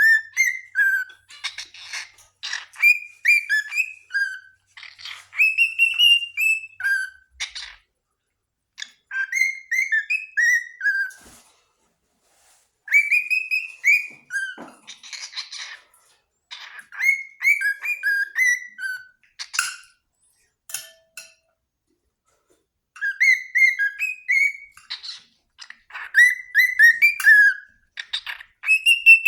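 Cockatiel whistling a song: repeated phrases of short whistled notes that rise and fall, mixed with brief raspy chirps, with pauses of a second or more between phrases.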